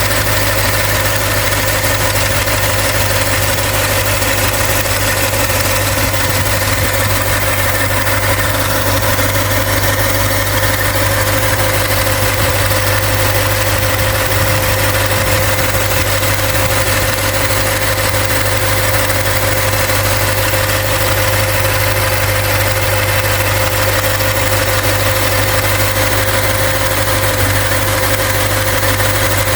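A Toyota Celsior's 4.3-litre V8 (3UZ-FE) idling steadily, with a steady whine riding over the engine hum.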